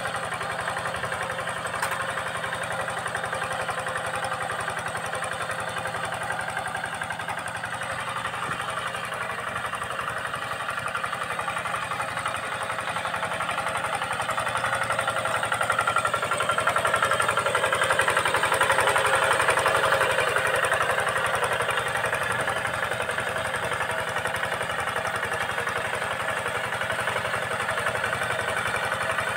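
Two-wheel hand tractor's single-cylinder diesel engine running steadily under load while it drags a levelling harrow through dry soil. It grows louder for a few seconds midway.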